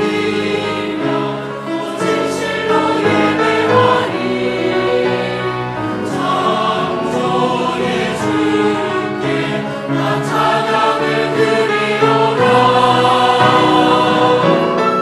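Church choir singing an anthem, many voices in several parts at once.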